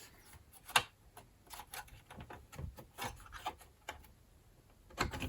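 Scattered light clicks and taps of a laptop hard drive being handled and pulled out of its drive bay, with a sharper click just under a second in and a cluster of small taps in the middle.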